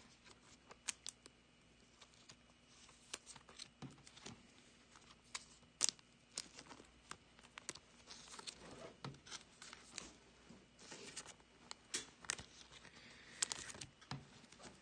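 Faint crinkling of thin clear plastic card sleeves and scattered soft clicks as trading cards are slid into the sleeves and handled.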